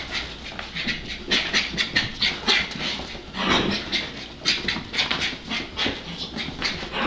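Papillon dog panting in quick, irregular breaths and huffs.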